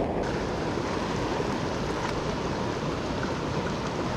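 Shallow river current rushing steadily over riffles, an even water noise.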